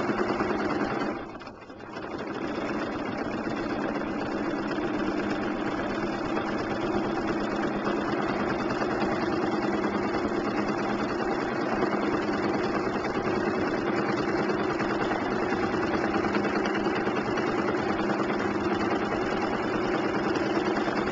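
Domestic sewing machine running steadily while free-motion quilting, the motor and needle going at an even speed. It stops briefly about a second in, then starts again and runs on.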